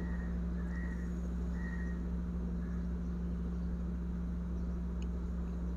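Steady low background hum with a faint even hiss; no distinct event stands out.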